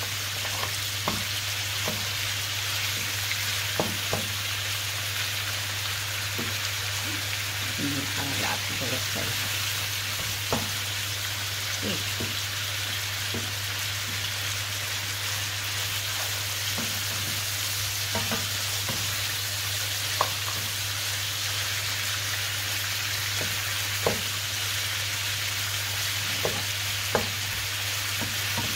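Pieces of lamb sizzling as they brown in a frying pan. A wooden spoon stirs them and knocks against the pan now and then.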